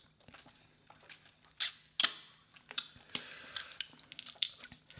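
Close-up eating sounds from a seafood boil: a run of crisp clicks and cracks, the two loudest about a second and a half and two seconds in, with wet chewing and squishing in between.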